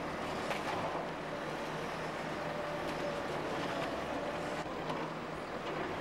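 Bulldozer diesel engine running steadily, with a few sharp metallic knocks.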